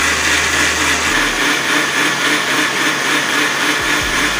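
Electric blender with a glass jar running steadily on its lowest speed, churning soft grated young coconut meat with coconut water, milk and sugar into buko juice.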